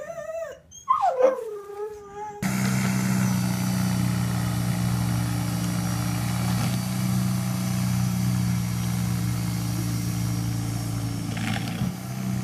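A dog howling and whining in rising and falling calls. About two seconds in, it cuts off sharply to a snowblower's small gasoline engine running steadily.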